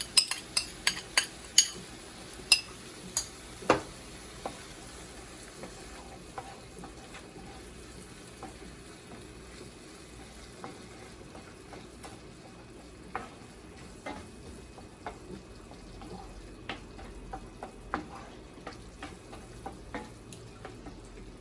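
Spoon stirring a sauce in a pan, clinking sharply against the pan many times in the first few seconds, then a low sizzle of the sauce frying with occasional light taps of the spoon.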